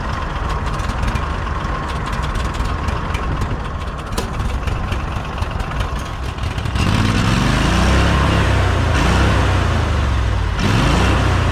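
An engine running; about seven seconds in it gets louder and its pitch rises and falls.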